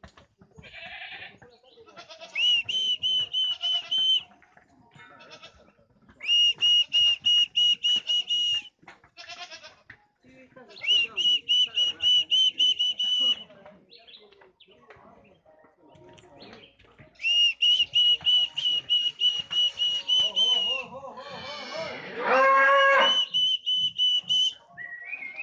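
Loud repeated animal calls: four high, rapidly pulsing calls of two to three seconds each, then a louder, lower call that rises in pitch near the end.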